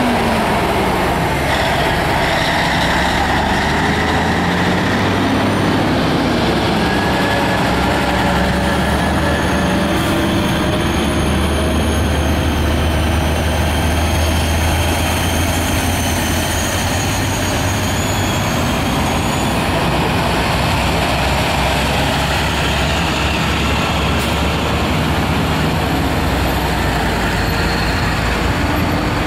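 A line of heavy tow trucks and semi tractors driving slowly past one after another, their diesel engines running steadily with a low drone that swells as each truck goes by.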